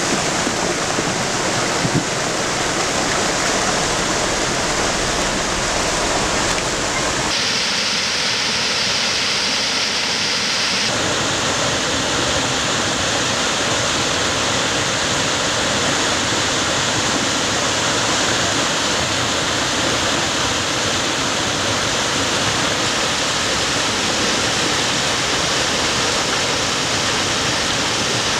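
Debris flow, a slurry of mud and stones, rushing down a mountain torrent channel with a steady, loud roar of noise. There is a single knock about two seconds in. The sound's character shifts abruptly about seven seconds in and shifts back about four seconds later.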